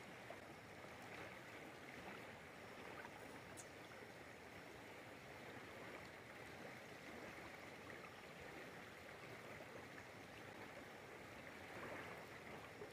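Faint, steady rush of a swollen river's current flowing over rocks.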